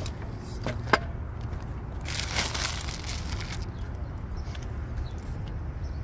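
Scooter packaging being handled: two sharp clicks about a second in, then about a second and a half of rustling, over a steady low rumble.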